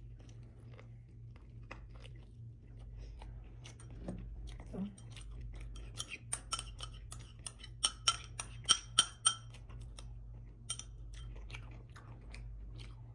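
Close-miked eating: soft chewing and mouth sounds. From about six seconds in, a quick run of sharp, ringing clinks of tableware against a small ceramic bowl lasts about four seconds and is the loudest part.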